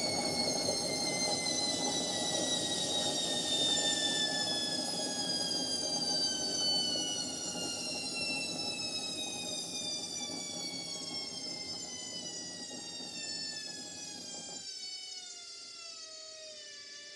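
Indesit washing machine's motor whining during the spin, the whine sliding steadily lower in pitch and quieter as the drum slows. A rushing rumble of the spinning drum under it cuts off about fifteen seconds in, leaving the falling whine alone.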